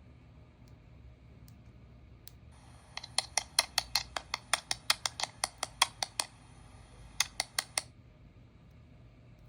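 A quick, even run of small sharp clicks, about five a second for some three seconds, then four more after a short pause, with a faint high steady tone behind them.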